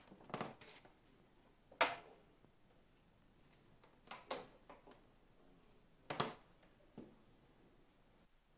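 Objects being handled on a table: a series of separate sharp clicks and knocks, the loudest about two seconds in, with a few more around four, six and seven seconds in.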